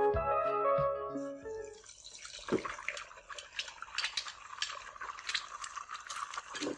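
Background music fading out about two seconds in, then kitchen sounds: a steady hiss with light, irregular clinks of utensils and dishes while food is prepared.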